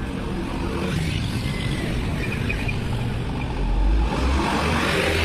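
Road traffic crossing: cars and motorbikes driving past, then a light truck passing close with a deep engine rumble from about three and a half seconds in.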